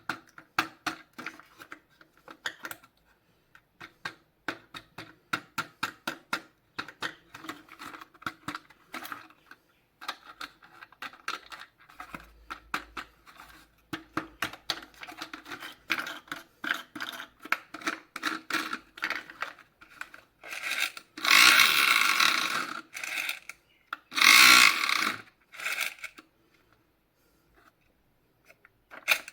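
Plastic toys and their packaging being handled during an unboxing: a quick run of small clicks, taps and scrapes, then two louder, longer rustling or tearing bursts near the end.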